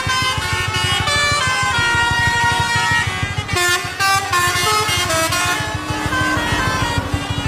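Lorry 'telolet' multi-tone air horns playing melodic tunes, several horns overlapping in held notes that step up and down in pitch, with lorry engines running underneath.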